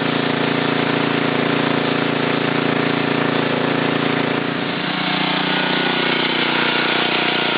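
Gas pressure washer's Honda 5 hp engine running steadily under load, its note shifting slightly lower about two-thirds of the way through.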